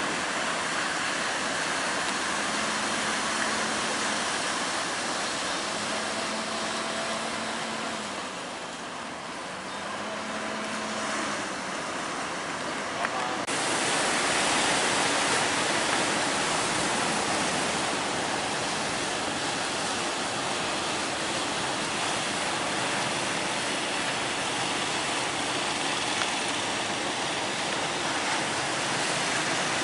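Heavy surf, a steady rush of breaking waves with wind on the microphone. A faint low hum comes and goes three times in the first ten seconds, and the rush turns suddenly louder and brighter about halfway through.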